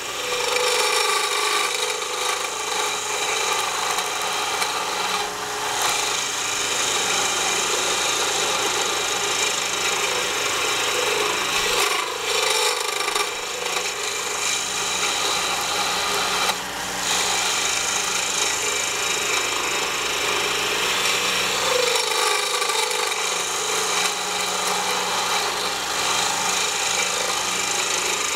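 Skew chisel cutting a pen blank spinning on a wood lathe, a steady shaving cut over the lathe's hum that eases off briefly a few times. This is the final shaping, taking the blank down to the diameter of the bushings.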